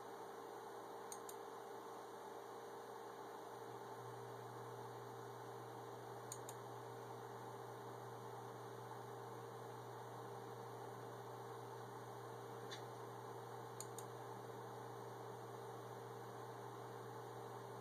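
Faint steady electrical hum, with a lower hum coming in about three and a half seconds in, and a few soft computer mouse clicks.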